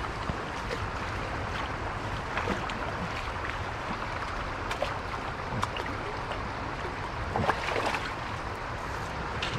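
Steady rush of river water at the bank, with a hooked steelhead splashing and thrashing at the surface now and then, the loudest splash about seven and a half seconds in.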